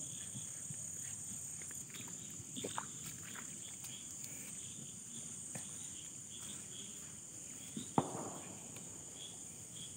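Night insects chirring in a steady high chorus, with faint rustling and one sharp knock about eight seconds in.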